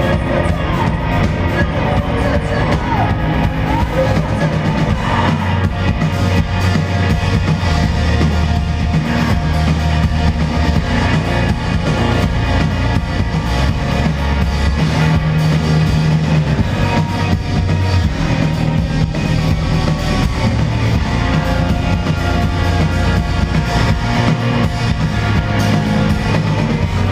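Hardcore punk band playing live at full volume: distorted electric guitars, bass and pounding drum kit, dense and unbroken, heard through a crowd recording.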